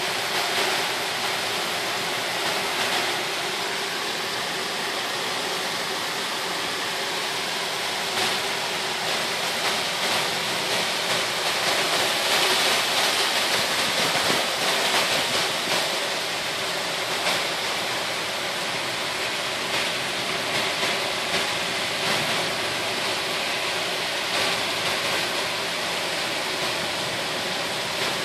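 Heavy rain pouring down, a steady dense hiss that swells a little about halfway through.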